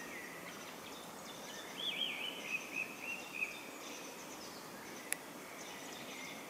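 Songbirds singing and calling over a steady outdoor background noise. A louder warbling song phrase comes about two seconds in, and a single sharp click sounds near the end.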